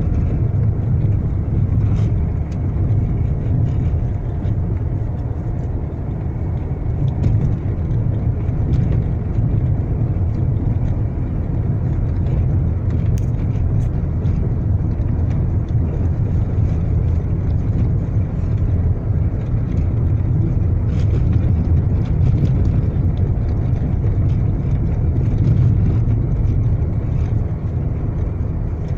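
Car driving over rough, potholed asphalt, heard from inside the cabin: a steady low road-and-engine rumble with a few faint clicks and knocks scattered through it.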